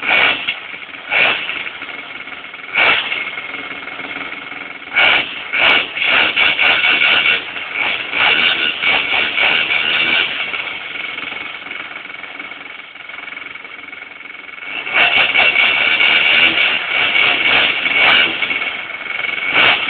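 DLE-55 single-cylinder two-stroke petrol engine on a model aircraft running through its first break-in. It idles and is repeatedly blipped up and down, held at higher revs around six to ten seconds in and again from about fifteen seconds, with a quieter idle in between.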